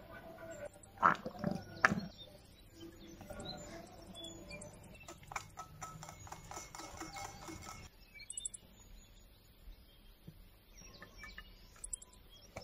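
Two sharp knocks, then a wire whisk clicking rapidly against a glass bowl for about three seconds as a marinade is beaten.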